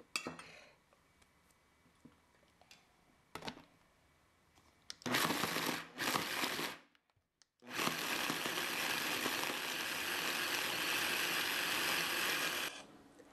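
Electric mini chopper (food processor) mincing raw pork chunks: after two faint clicks, the motor runs in a couple of short pulses, pauses briefly, then runs steadily for about five seconds and stops.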